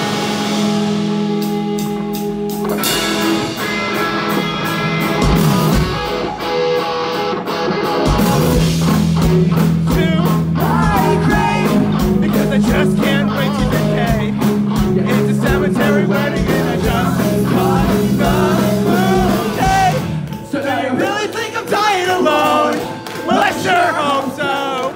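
Rock band playing live: electric guitars, bass and drums, with a singer coming in about nine seconds in. The band thins out briefly about twenty seconds in, then picks up again.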